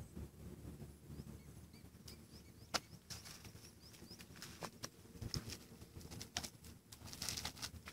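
Faint outdoor quiet with scattered light clicks and rustles, a brief rustle near the end, and a few faint high bird chirps about two to three seconds in.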